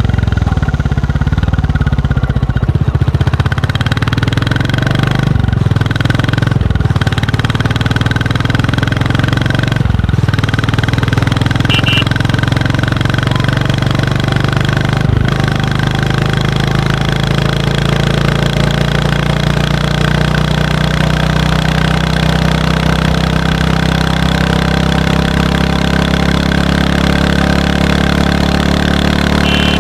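Royal Enfield Classic 350's single-cylinder engine heard through its stock exhaust, running steadily while the bike is ridden on the road. The note drops briefly a few times in the first half, then holds steady at cruising speed.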